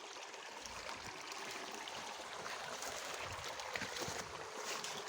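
Faint steady rush of a small stream's flowing water, with a few light clicks about three to four seconds in.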